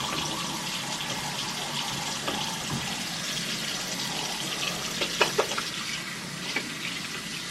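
Bathroom sink faucet running steadily into the basin while hands are washed under the stream, with a few brief splashy knocks about five seconds in.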